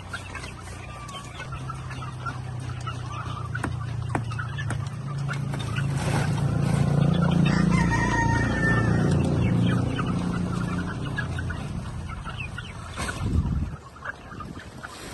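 Chickens clucking with a rooster crowing, over a low droning hum that swells in the middle and dies away near the end. A short knock comes shortly before the end.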